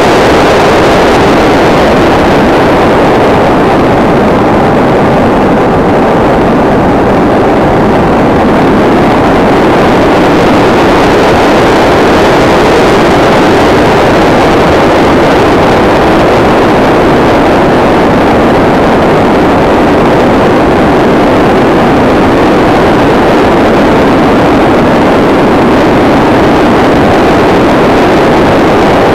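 Loud, steady in-flight noise picked up by a camera riding on a SkyCruise 2400 RC motor glider: a dense rush of air and airframe noise with no clear pitch. The hiss thins slightly for a few seconds about four seconds in, then returns.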